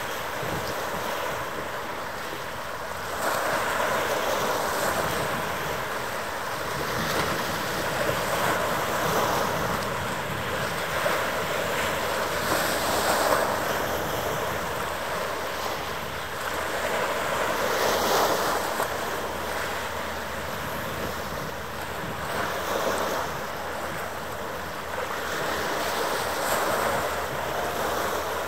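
Wind buffeting the microphone, a rushing noise that swells and eases in gusts every few seconds, over a faint steady hum.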